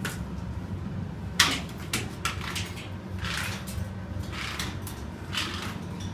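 Footsteps scuffing on carpet about once a second, over a steady low hum, with one sharp click about a second and a half in and two fainter clicks just after.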